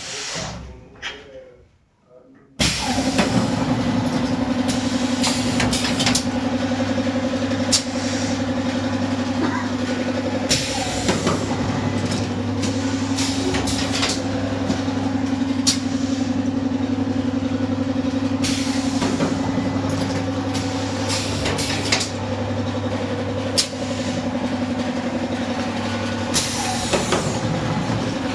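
Carton filling and sealing machine of the Tetra Pak type running: a steady mechanical hum broken by frequent clicks and knocks from its moving parts. The noise comes in suddenly about two and a half seconds in.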